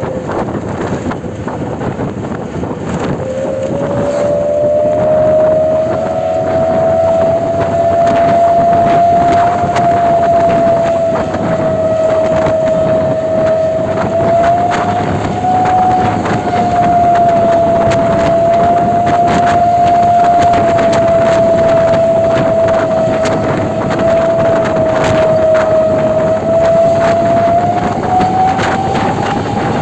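A bus's ship-style air horn ('klakson kapal') sounding one long, unbroken blast, its pitch wavering slowly; it steps up in pitch and grows louder a few seconds in.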